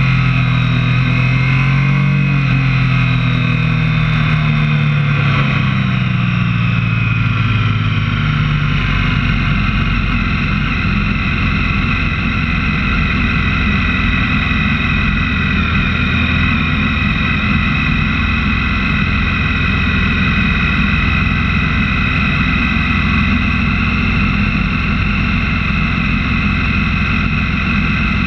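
Motorcycle engine and wind rush heard from a camera mounted on the bike while riding. The engine's pitch rises and falls for the first several seconds, then the sound settles into a steady rush of wind and road noise with a constant higher whine.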